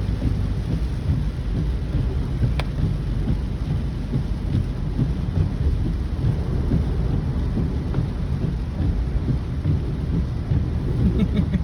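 Heavy rainstorm: steady rain with a continuous low rumble.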